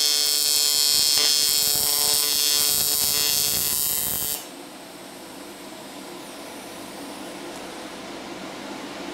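AC TIG welding arc on thick aluminum, from a Primeweld 225 turned up to its full 225 amps, buzzing steadily at one even pitch. The buzz cuts off suddenly about four and a half seconds in, leaving faint room hiss.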